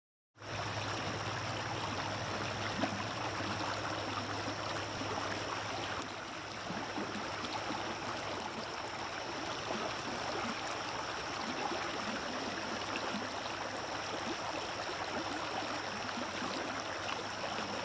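Shallow water moving gently around a rock: a steady rushing hiss, with a steady high-pitched whine over it.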